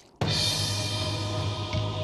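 Background music cutting in suddenly, a bed of steady held notes over a low, steady bass.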